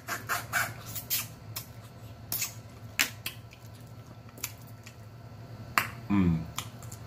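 A person eating snow crab up close: wet mouth smacking, sucking and sharp clicks, thickest in the first three seconds. A little after six seconds comes a brief hummed 'mm'.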